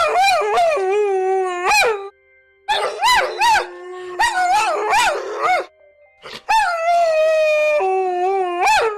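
Several canines howling together in overlapping, wavering voices that slide up and down in pitch. The howls come in three bouts, with short breaks about two seconds and six seconds in.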